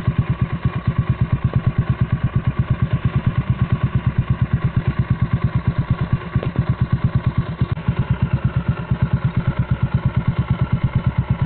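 Single-cylinder Bajaj Avenger 220 motorcycle engine idling through an aftermarket Cobra exhaust, a steady, even rapid beat of exhaust pulses.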